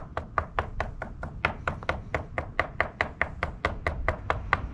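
A metal fork docking pizza dough: quick, even taps of the tines punching through the dough onto a wooden cutting board, about six a second.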